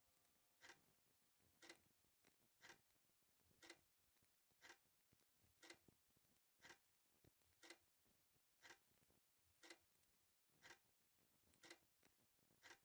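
Faint clock ticking steadily, about one tick a second.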